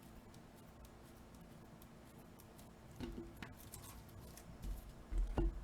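Trading cards and plastic card holders being handled and sorted, with soft clicks throughout and a few louder knocks about three seconds in and again near the end.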